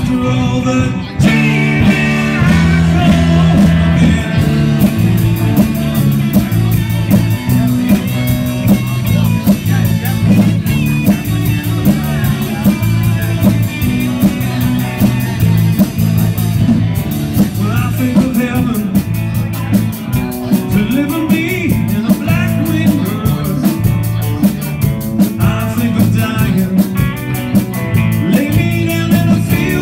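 Live rock band playing a song: a male singer into a microphone over electric guitars, bass and a drum kit, with steady cymbal beats.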